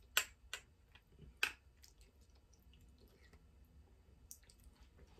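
A person slurping and chewing noodles: a few short wet smacks and clicks of the mouth, the two loudest in the first second and a half, then softer chewing sounds.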